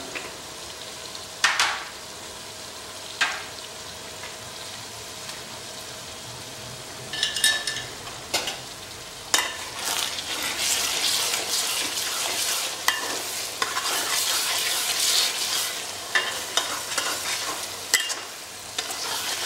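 Onions and ground spices sizzling in hot oil in a large metal pot, with a few isolated taps at first. From about nine seconds in the masala is stirred, and the sizzling grows louder with frequent clinks of the spoon against the pot.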